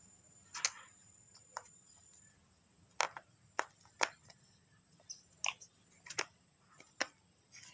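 About eight sharp, irregular clicks and light knocks, like small hard objects being handled, over a faint steady high-pitched whine.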